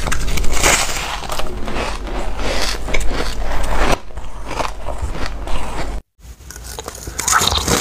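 Close-miked biting and chewing of packed shaved ice: dense, crisp crunching and crackling. It cuts to silence for a moment about six seconds in, then the crunching starts again.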